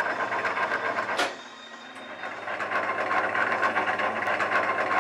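Metal lathe cutting: the machine running with a dense rattling crackle of the tool taking a cut. There is a sharp click just over a second in, a quieter spell of about a second, and then the cutting noise returns at full strength.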